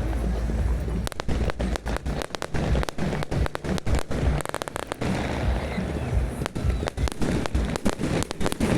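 Fireworks going off: many sharp cracks and bangs in quick succession over a low rumble of booms.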